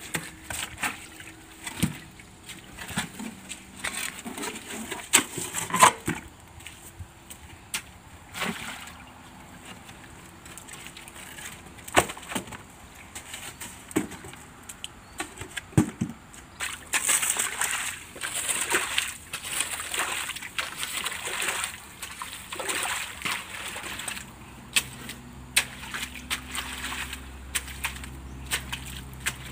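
A hoe chopping and dragging through wet mud and shallow puddle water, with irregular strikes of the blade and sloshing and splashing, as a drainage channel is dug to let standing water run off.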